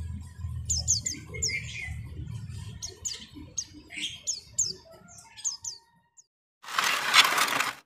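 White-eyes (pleci, Zosterops) chirping in quick, high, short calls, the calls of a courting pair about to mate; the calls stop about six seconds in. Near the end comes a loud burst of hiss lasting about a second.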